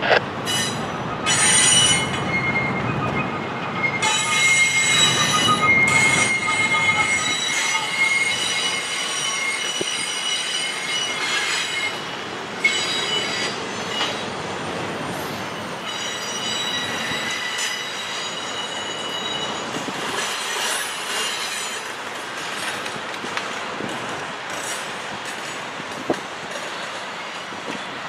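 Freight train rolling past, its steel wheels squealing against the rails in several high, steady tones over the rumble of the cars; the squeal eases off after about twelve seconds.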